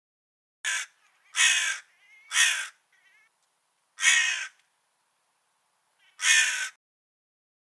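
Crow cawing: five loud, harsh caws at uneven intervals, the first short and the rest longer, with a couple of faint softer calls in between.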